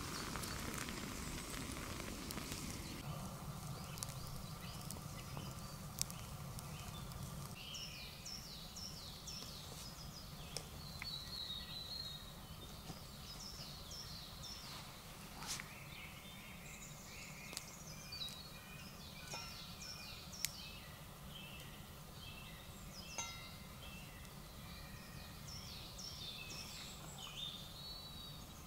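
Woodland birds singing, many short falling chirps and phrases repeating over a low steady outdoor background, with a few sharp snaps at intervals. In the first seconds hot water pours from a camping kettle into an enamel mug.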